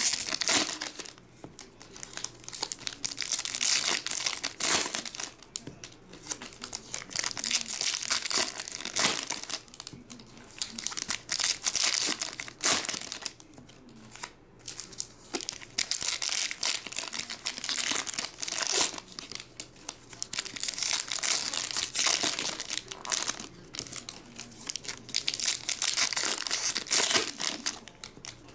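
Foil wrappers of Topps baseball card packs being torn open and crinkled by hand, in a run of crisp bursts with short quieter pauses between them.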